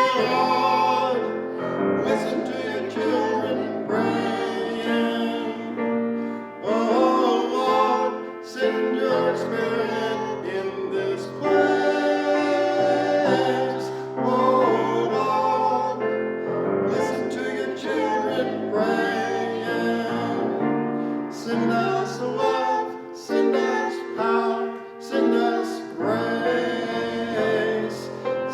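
Music: a sung song with piano accompaniment.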